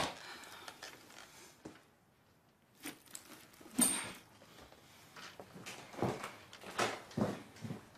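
Soft handling noises: a sheet of paper passed across a desk and a jacket pulled off a coat stand, heard as a few scattered light knocks and rustles after a short quiet stretch.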